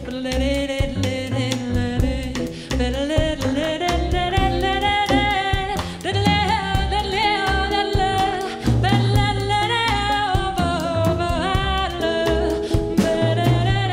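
Live jazz blues: a woman singing long held notes that slide up and down, backed by a small band with bass and drum kit.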